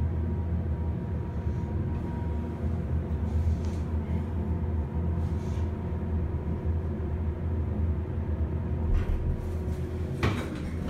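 Schindler 330A hydraulic elevator car travelling between floors: a steady low hum with faint steady tones above it. A brief rising swish comes near the end.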